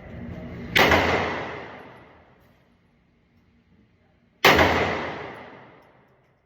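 Two gunshots fired about three and a half seconds apart, each followed by a long echoing tail that dies away over a second or two: slow, deliberate shots while working through a magazine.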